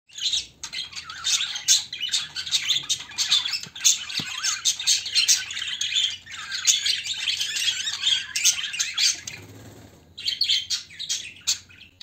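A group of budgerigars chattering: a dense, rapid warble of chirps and squawks, with a short lull about nine seconds in before the chatter resumes.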